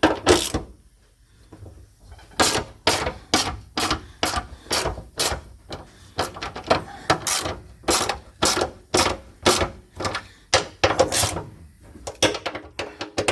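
Hand ratchet wrench clicking in repeated back-strokes, about two to three a second, as it undoes the bolts holding the car's underbody plate.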